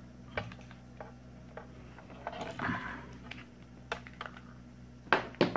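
Handling noise from a laptop-style power adapter and its cables being moved by hand: scattered light clicks and knocks with a brief rustle of cable, and a few louder knocks near the end.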